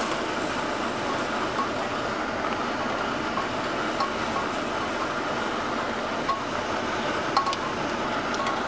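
Onion masala and ground spices frying in oil with a steady sizzle, stirred with a steel ladle that scrapes and taps the pot now and then.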